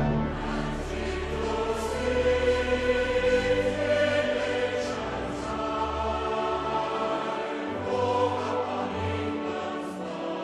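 Choral music: a choir singing long held chords that shift slowly from one to the next.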